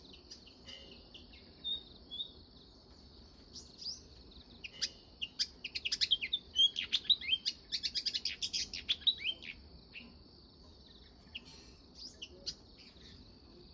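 House sparrows chirping, a few scattered chirps building to a rapid, dense run of chirps in the middle before thinning out again. A steady high insect drone runs underneath.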